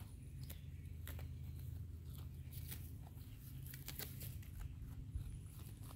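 Young goats cropping and chewing grass: faint, scattered tearing and crunching clicks over a steady low rumble.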